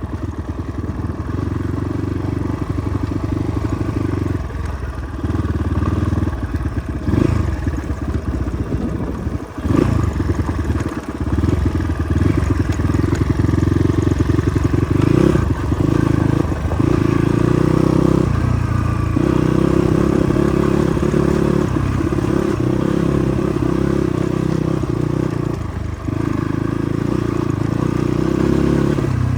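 Motorcycle engine running under way on an off-road track. The throttle is eased off and opened again several times, so the engine note dips briefly and comes back.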